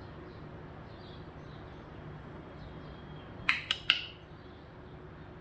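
A parrot giving three short, sharp, harsh calls in quick succession about three and a half seconds in, over faint background hiss.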